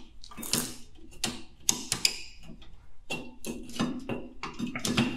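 Irregular metallic clicks and scrapes of C-clip pliers working against the handbrake cable's coil spring and the steel backing plate of a rear drum brake, as the spring is pushed back to free the cable.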